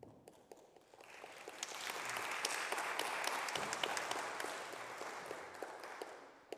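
Congregation applauding: clapping that swells over the first couple of seconds, holds, then tapers off near the end.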